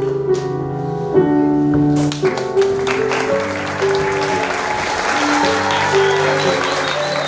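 Audience applauding over recorded music with held notes, piano among them; the clapping thickens about two seconds in.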